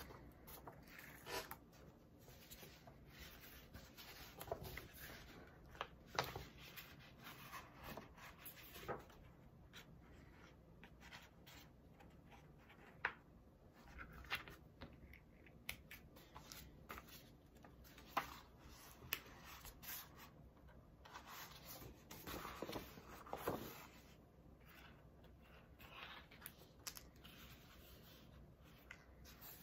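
Thread being drawn through the fold of folded paper signatures during hand sewing, with faint rasps and the rustle and tap of paper being handled, coming at irregular intervals.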